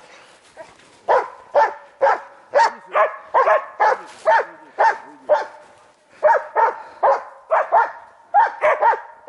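Hunting laika barking steadily and repeatedly, about two barks a second, starting about a second in. This is the steady bark a laika gives when it has found game and is holding it.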